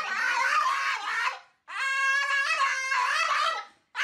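French bulldog whining in two long, high-pitched cries, the second starting just after the first breaks off, each wavering in pitch.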